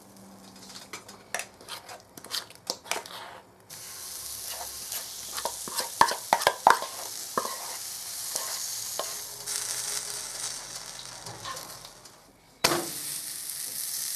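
Butter and pancake batter sizzling in a hot frying pan, with sharp clicks and taps of a utensil against the pan. The sizzle starts a few seconds in, fades for a moment near the end, then flares up suddenly again.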